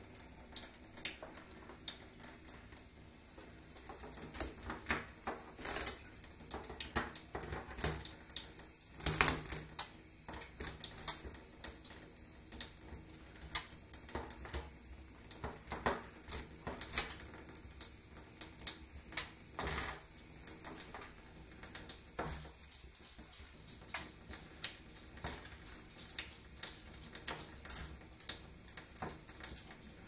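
Kitchen tap running onto a wet macaw and a stainless steel draining board, with irregular splashes, spatters and clicks on the steel.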